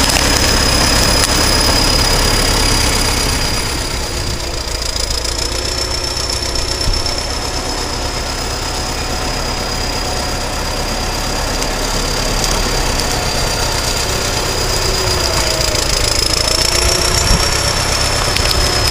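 Caterpillar D7 bulldozer's diesel engine running steadily, with a thin, high turbocharger whistle held over the low engine rumble, its pitch wavering slightly.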